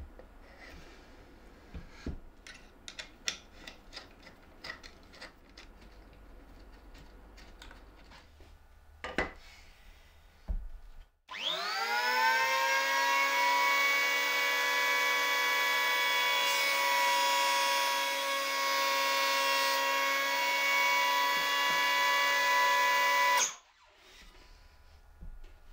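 Electric hand planer mounted in a wooden jig. First come scattered clicks and knocks of wood being handled. About eleven seconds in, the planer's motor spins up with a quickly rising whine, runs steadily for about twelve seconds while a board is planed, then cuts off suddenly.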